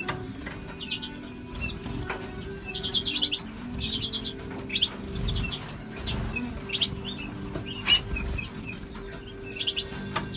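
Aviary finches and starlings chirping in short quick clusters of high notes, with wings fluttering as birds fly about, over a steady low hum.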